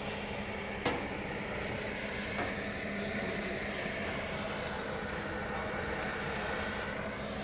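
Steady mechanical drone with a constant low hum, and a sharp knock about a second in.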